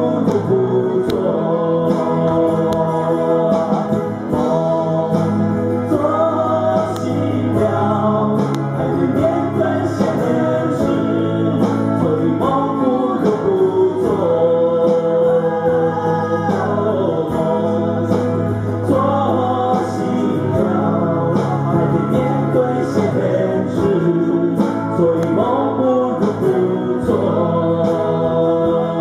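Two men singing a song together to their own strummed guitar accompaniment, amplified through a small PA.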